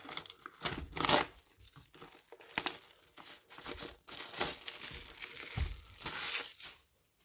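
Plastic wrapping crinkling and tearing in irregular crackles as a trading-card booster box is unwrapped, stopping shortly before the end.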